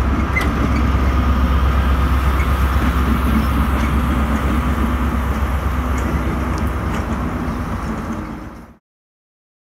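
Class 73 electro-diesel locomotive running slowly past with its rail head treatment train of water-tank wagons: a steady low engine hum and rumble. It cuts off suddenly near the end.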